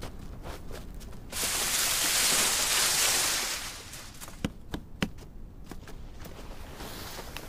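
Rustling of undergrowth and leaves as people move through brush: a loud, dense rustle lasting about two seconds, then a few sharp separate clicks and steps a little later.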